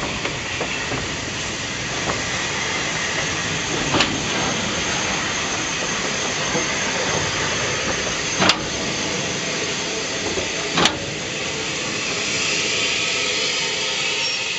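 Steam locomotive standing at a platform with a steady hiss of escaping steam. Three sharp metallic clanks come about 4, 8.5 and 11 seconds in.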